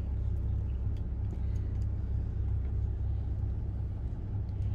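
A steady low rumble, with a few faint light clicks now and then.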